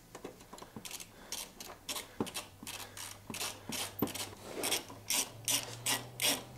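A hand socket ratchet clicking as a motorcycle's rear-axle chain adjuster bolt is run in to set chain tension. The clicks start sparse and settle into an even rhythm of about three to four a second.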